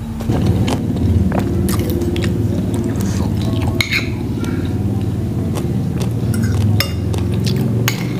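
Close-miked chewing of rice and beef soup, with a metal spoon and fork scraping and clinking against a ceramic plate now and then.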